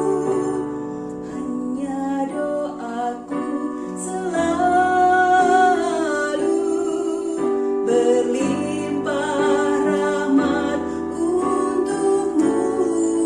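A song sung by a female voice with long held notes over guitar accompaniment.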